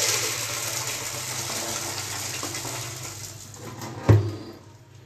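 Water running from a tap in a steady hiss that fades away near the end, with one loud thump about four seconds in.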